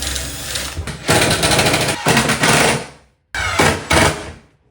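Cordless impact driver hammering screws into cabinet wood, in several short bursts of rapid impacts.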